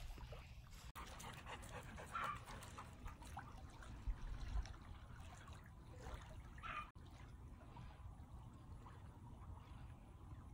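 Dog whimpering briefly, twice, about two seconds in and near seven seconds, over faint lapping of small waves at the shoreline.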